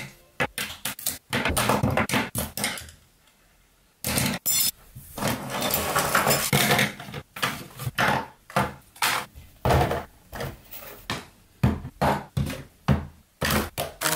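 Objects being set down and shuffled on a wooden desktop: a quick run of short clacks, taps and thuds, with a brief silent break about three seconds in.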